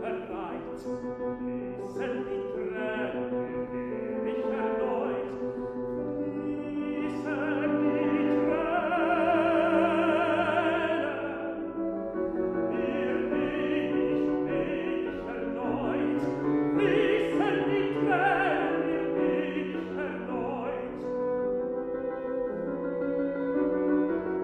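Classical art song: a tenor singing in German with piano accompaniment, the voice swelling on long held notes with vibrato near the middle.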